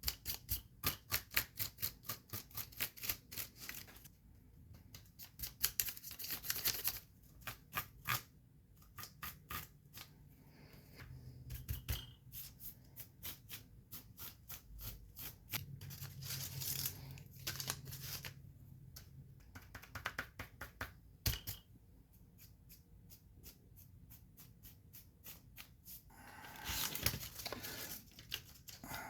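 Paintbrush dry-brushing rust texture onto plastic scale-model bulldozer tracks: runs of quick, scratchy back-and-forth strokes, several a second, broken by short pauses.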